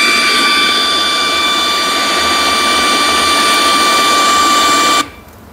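LED lamp's built-in speaker in FM radio mode, giving out loud untuned radio static with a steady high electronic whine through it. It cuts off suddenly near the end.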